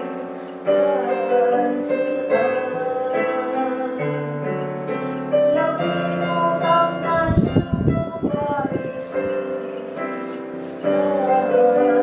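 Music: a song with piano or keyboard accompaniment and a singing voice, its melody moving through slow, held notes.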